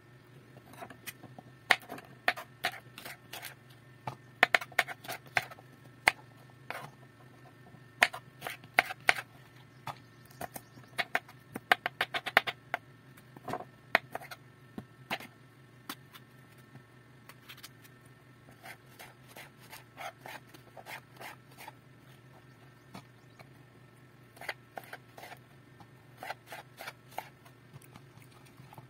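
Kitchen knife slicing okra and eggplant on a plastic cutting board: irregular sharp taps of the blade hitting the board, thick in the first half and sparser later, over a faint steady hum.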